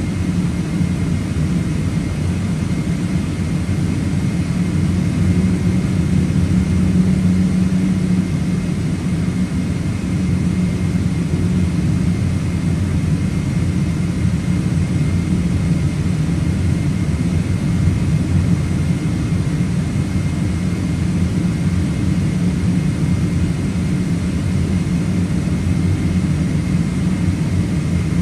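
Boeing 777-300ER's GE90-115B engines at taxi thrust, heard from inside the cabin as a steady low rumble with a faint steady high tone.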